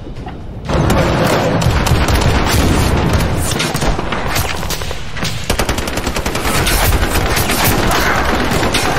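Rapid gunfire: machine-gun bursts and scattered shots, starting suddenly about a second in and running on densely, with a short lull around the middle.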